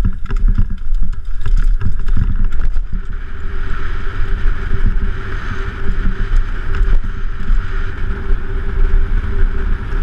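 Mountain bike riding fast down a dirt trail: wind buffeting the microphone, with constant rattling and knocking from the bike and tyres on the rough ground.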